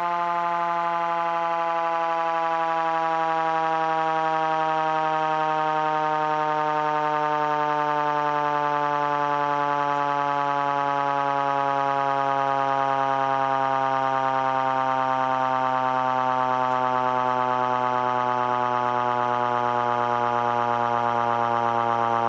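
Federal Q2B mechanical siren wailing, its pitch falling slowly and smoothly as the rotor winds down.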